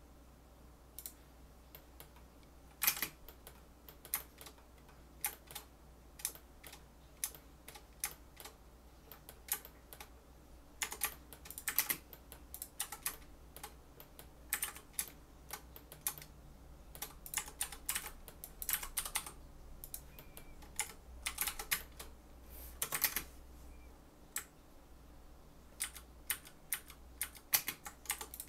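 Computer keyboard keys pressed in irregular runs of sharp clicks, starting about a second in, over a steady low fan hum.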